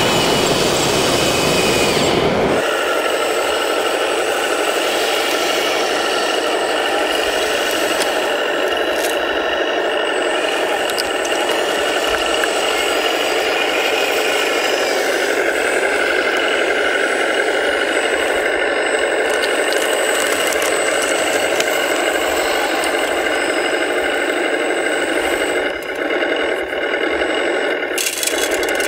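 1/14-scale RC hydraulic track loader running, with a steady whine from its electric motors and hydraulic pump and some rattling. A deeper rumble in the first couple of seconds stops suddenly.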